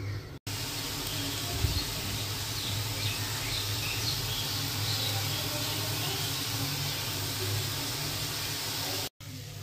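Leafy greens with chillies sizzling in an aluminium kadai, a steady frying hiss over a low hum, with a single knock about a second and a half in.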